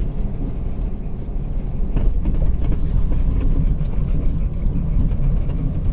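Vehicle driving, heard from inside the cab: a steady low road rumble of engine and tyres with light scattered rattles.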